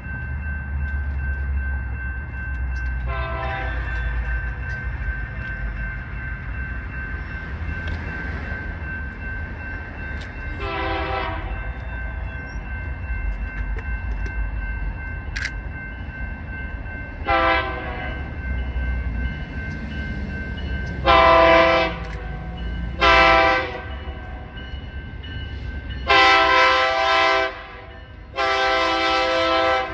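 BNSF diesel freight locomotive's air horn sounding as the train approaches: three separate blasts spread over the first twenty seconds, then four longer, louder blasts close together near the end, over the low rumble of the locomotive engines.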